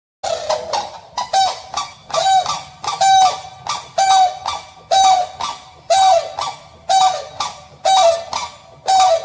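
Grey crowned crane giving a series of loud honking calls, about one a second, each a short note followed by a longer honk that drops away at its end.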